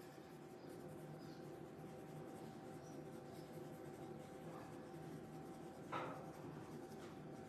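Soft pastel pencil scratching faintly on Pastelmat paper in light, repeated shading strokes, with one brief louder knock about six seconds in.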